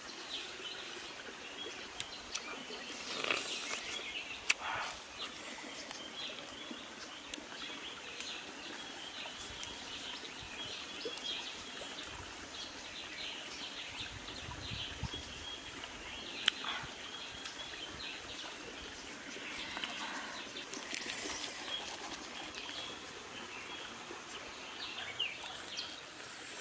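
Forest ambience with birds chirping steadily in the background, and a few brief rustles and clicks now and then.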